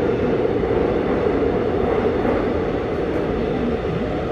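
AREX Airport Railroad commuter train running through a tunnel, heard from inside the car: a steady rumble and wheel-on-rail noise with a strong hum running through it. It drops a little in level about two-thirds of the way in.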